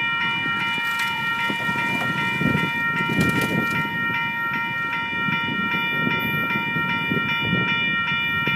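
Electronic railroad crossing bell ringing steadily while the crossing signals are active, warning of an approaching train. The crossing's mechanical bells are not working. There is a lower rumbling noise underneath.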